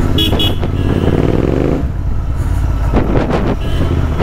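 Royal Enfield Interceptor 650's parallel-twin engine with an aftermarket exhaust, running on the move. Its pitch climbs from about half a second to two seconds in as the bike accelerates, then settles back to a steady low note.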